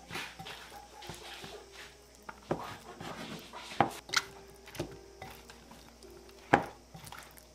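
Chopsticks tossing flour-coated, sauce-marinated okra in a glass mixing bowl: soft wet rustling, with several sharp clicks of the chopsticks against the glass. The loudest click comes about six and a half seconds in.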